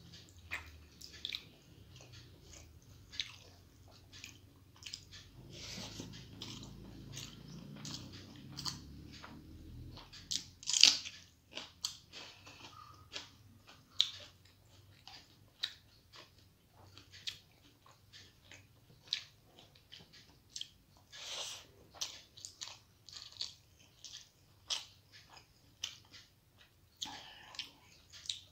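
Close-miked eating sounds: chewing and mouth clicks, together with fingers mixing rice and fried red amaranth on a plate. Irregular soft clicks and smacks, with a louder one about a third of the way through.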